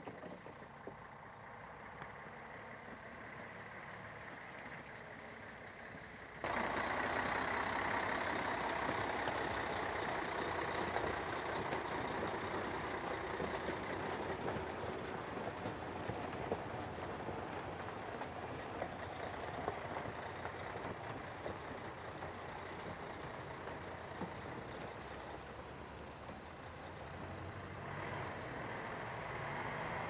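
Engine of a heavy multi-axle military truck running steadily as it drives through shallow water onto a floating bridge. The sound jumps abruptly louder about six seconds in and stays dense and steady; before that there is only a quieter vehicle hum.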